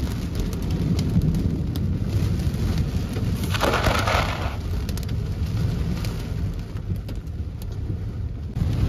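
Heavy rain with hail drumming on a car's roof and windshield, heard from inside the cabin as many sharp ticks over a steady low rumble. About three and a half seconds in, a louder rushing swish lasts about a second.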